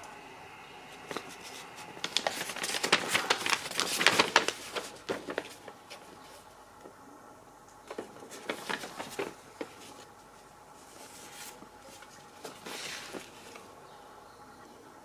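Paper rustling and crinkling as a folded paper programme is unfolded, turned and handled, in three spells of crackling, the longest and loudest in the first few seconds.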